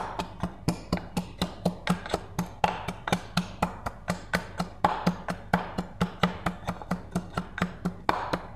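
Wooden pestle pounding garlic in a wooden mortar: a steady run of knocks, about three a second.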